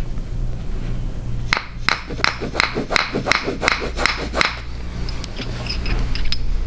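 A white-tipped mallet striking a metal chiropractic adjusting tool held against the jaw joint, in a percussive jaw adjustment: about nine quick taps, roughly three a second, then a few fainter taps near the end.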